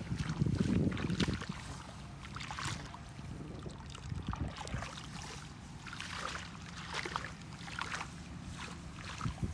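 Bare hands pushing through wet grass and scooping soft mud, with scattered rustles and wet squelches. A low rumble on the microphone fills the first second.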